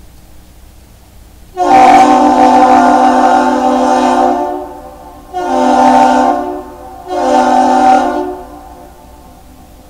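A deep horn gives one long blast followed by two short blasts. This is the long-short-short salute that a departing lake freighter and the Duluth lift bridge exchange.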